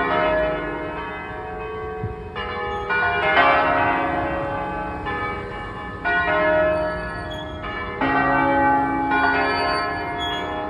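Church bells pealing: several bells struck one after another in an irregular sequence about every one to two seconds, each note ringing on and overlapping the others.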